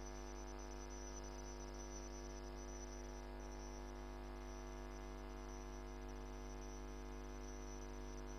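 Faint, steady electrical hum and buzz: a stack of unchanging tones over a low hum, with nothing else over it.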